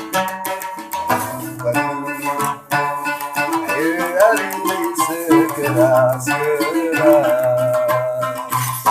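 Large gambus, a Sasak plucked lute, playing a traditional Cilokaq melody. Quick plucked notes ring over a repeated low note, and through the middle of the passage the melody slides and wavers in pitch.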